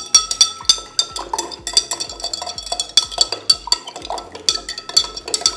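Metal spoon stirring in a glass of water, clinking rapidly and repeatedly against the glass with a bright ring as a powder is dissolved.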